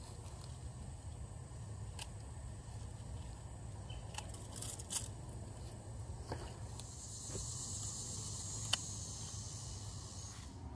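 Pruning shears snipping tomato plant stems: about five sharp clicks, the loudest near the end, over a steady low rumble. Cut leaves rustle with a light hiss for a few seconds from about seven seconds in.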